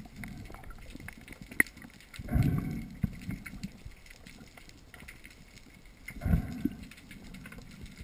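Muffled underwater noise picked up through an action camera's housing, with two louder low rumbling surges, about two and a half and six seconds in.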